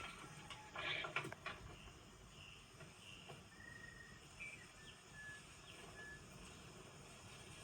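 Faint outdoor nature ambience with scattered short high chirps, typical of a film's meadow background of crickets and insects; a brief clatter sounds about a second in.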